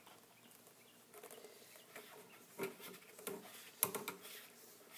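Faint plastic clicks and scrapes as a flexible drain pipe is twisted onto the drain fitting of a plastic flower-pot sink, with a sharper knock just under four seconds in.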